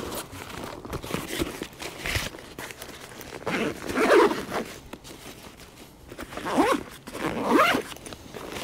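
Zipper of a Bach Daydream 35 hiking backpack's front-opening panel being pulled shut, in two long sweeping pulls, with fabric rustling as the pack is handled.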